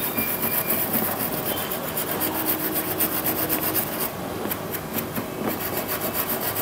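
A brush wet with thinner scrubbing quickly back and forth across the pin row of an LED TV panel's source circuit board, a rapid scratchy rubbing with a short lull about four seconds in. It is cleaning leftover solder paste off the freshly resoldered pins.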